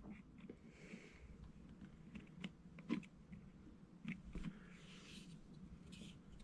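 Quiet handling of a small plastic N gauge model locomotive: a few scattered light clicks and taps, with soft rubbing in between.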